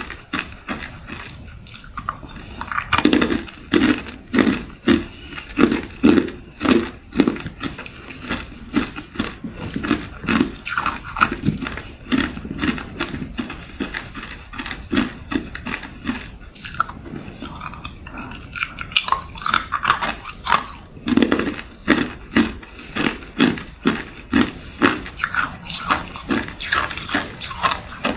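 Hard clear ice cubes being bitten and chewed: a rapid run of sharp cracks and crunches with brief pauses between mouthfuls.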